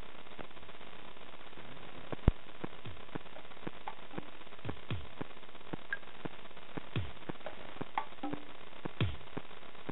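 Steady hiss with scattered sharp clicks and soft thumps that drop in pitch, growing more frequent in the second half; a single louder click comes a little after two seconds in.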